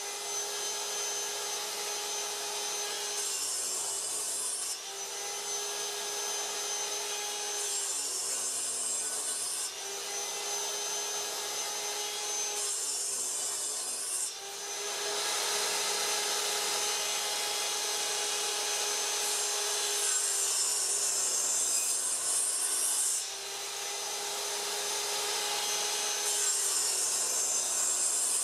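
Metabo sliding miter saw running while its blade is brought down into a round wooden disc again and again, cutting a series of radial slots. The motor's steady whine comes and goes with the cuts every few seconds, with the hiss of the blade in the wood.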